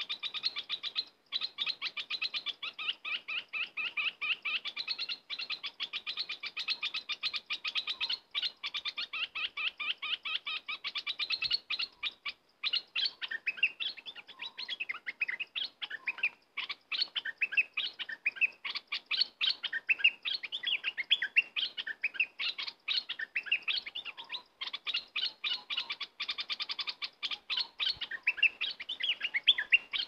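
Bulbuls chirping and singing in a fast, dense run of short chirps, broken by a few brief pauses.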